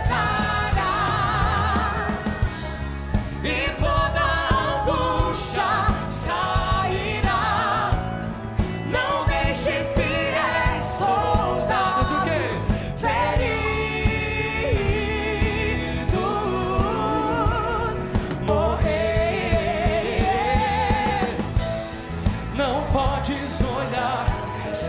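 Portuguese-language gospel song performed live by a female and a male singer, with a band of drums, electric guitar, bass and keyboard. The singers hold long notes with vibrato.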